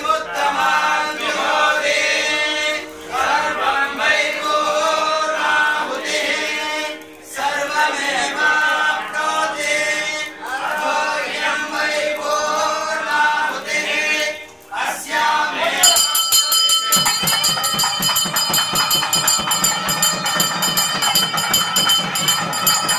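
Priests chanting Vedic mantras together in phrases a few seconds long, for the poornahuti, the final offering into the homa fire. About two-thirds of the way through, the chanting stops and a continuous ringing of bells takes over.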